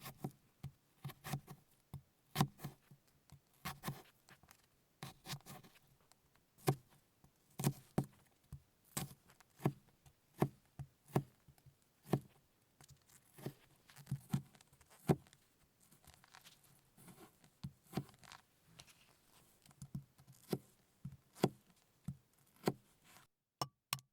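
Close-miked food-preparation handling sounds: irregular taps, clicks and light crinkling, about one or two sharp ones a second, stopping dead shortly before the end.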